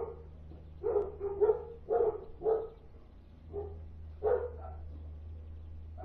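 Dog barking repeatedly: about ten short barks, most in the first three seconds, then a pause and a few more about four seconds in, with a steady low hum underneath.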